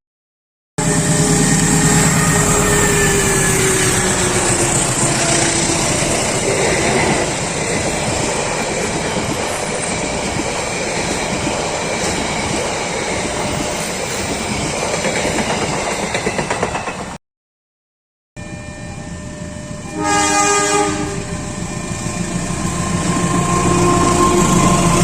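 Train passing close by: a loud steady rush of wheels and carriages on the rails. After a short break in the sound, a locomotive horn sounds once for about a second.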